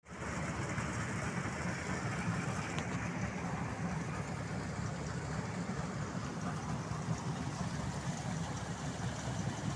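Combine harvester engine running steadily with a low, even drone.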